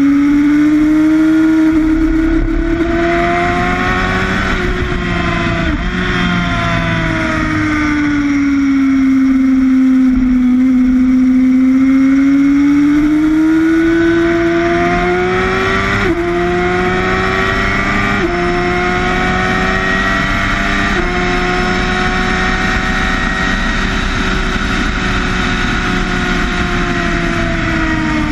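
Sportbike engine at high revs on track, heard from the bike itself, its pitch rising and falling with the throttle through the corners. In the second half it drops sharply three times in quick succession as the rider shifts up, then eases off near the end. Wind rush runs under the engine.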